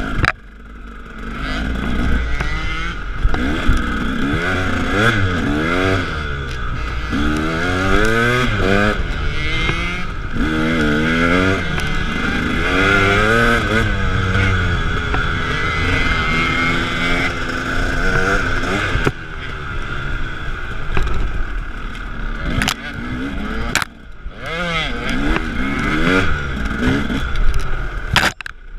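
KTM 300 two-stroke dirt bike engine, revving up and down again and again as the throttle is worked over rough ground. A few sharp knocks sound in the last few seconds.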